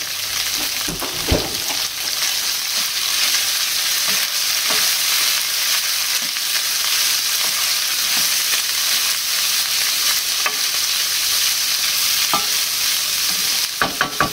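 Diced smoked tofu, peppers and frozen sweet corn sizzling steadily in a hot oiled non-stick frying pan, stirred with a wooden spoon. The spoon knocks against the pan about a second in and several times near the end.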